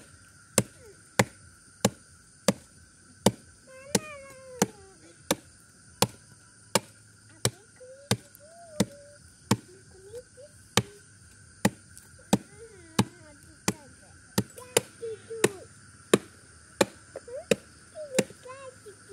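A hand-held blade chopping into the wood at the base of a tree stump. There are sharp, evenly paced strikes, about one and a half a second, that keep going without a break.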